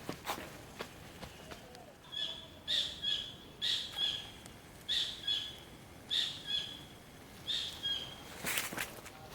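A bird calling: a two-part high note repeated about once a second, six times in a row. A short rustling noise follows near the end.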